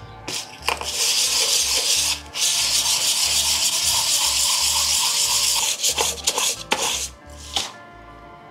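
Motorcycle front brake pad rubbed in small circles on 220-grit sandpaper, a steady gritty scraping for about five seconds with one brief break, then a few short strokes before it stops. The pad's glazed top layer is being sanded off.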